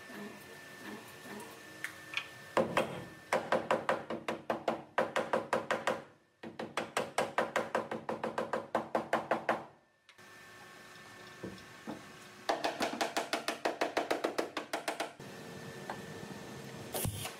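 Hammer beating on car-body sheet metal at the rear wheel arch, in fast even runs of about four to five blows a second, three runs with short breaks between them.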